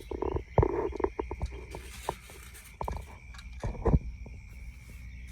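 Scattered knocks and clanks as gazebo frame parts are handled and fitted together, the loudest a little before the end. A steady high-pitched drone, like insects or frogs, runs beneath.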